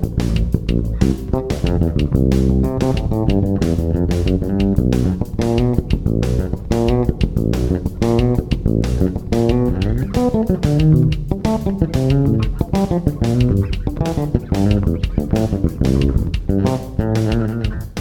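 Electric bass guitar playing a continuous run of quick plucked forró phrases.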